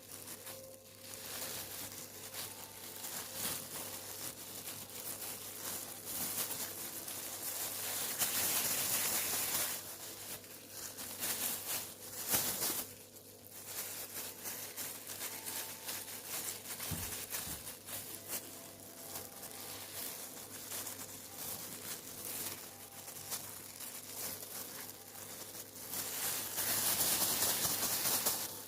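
Rustling and crinkling noises, loudest in two spells, about eight seconds in and again near the end.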